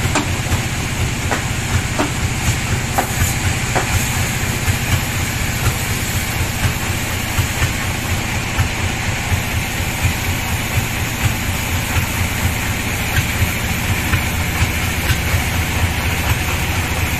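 Large sawmill band saw running steadily, a constant low machine hum under a wide, even whir, with a few light knocks in the first few seconds.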